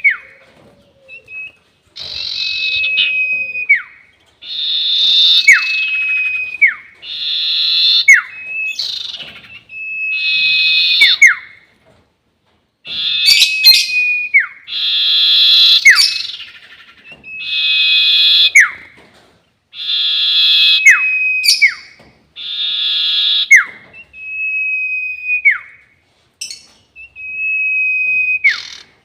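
Sirtu bird singing its long whistling song, a lure call: phrases repeat about every two seconds, each a buzzy trill over a held whistle that ends in a quick downward slide.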